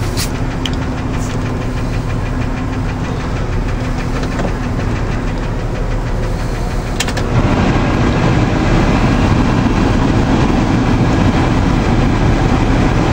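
1993 Ford F-150's engine idling steadily, heard from inside the cab. About seven seconds in a switch clicks and the heater blower fan comes on, adding a steady rush of air that makes the cab noticeably louder: the blower motor works.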